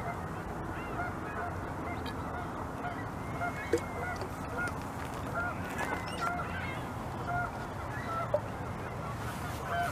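Geese honking in the background, many short calls scattered and overlapping over a steady noise, with a couple of sharp clicks about four and eight seconds in.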